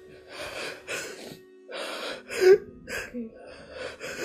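A woman sobbing, with a run of ragged, gasping breaths, over soft background music with held notes.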